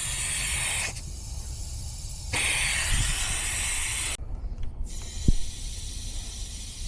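Nitrogen hissing through the regulator and gauge hoses into an HVAC refrigerant system being pressurized for a tightness test. The hiss stops just before a second in, comes back for about two seconds, cuts off sharply, then returns more quietly, with a single click about five seconds in.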